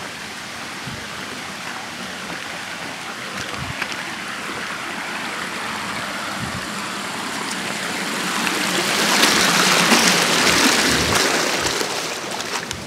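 Creek water spilling over a low rock ledge in a thin cascade: a steady rush that swells louder about two-thirds of the way through, then eases. A few soft footsteps.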